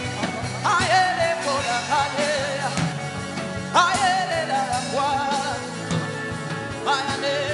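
Worship music: a voice sings three long held phrases, each starting with an upward slide, over steady accompaniment.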